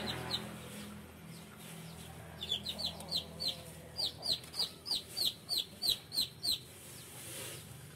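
Chicks peeping: runs of short, high, falling peeps, about three a second, in three bursts with pauses between them.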